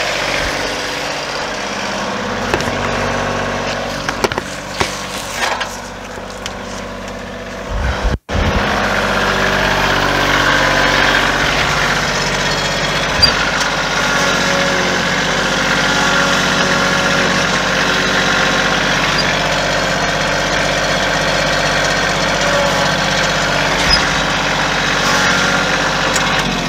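Compact tractor engine running steadily as its front loader handles a log, with a brief break about eight seconds in.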